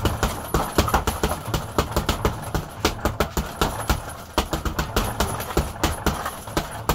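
Boxing gloves striking a hanging heavy punching bag in quick, irregular combinations, several hits a second.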